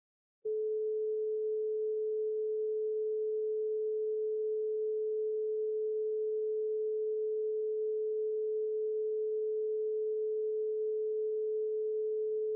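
A steady pure sine tone at 432 Hz, starting abruptly about half a second in out of silence. Near the end, deeper tones join beneath it.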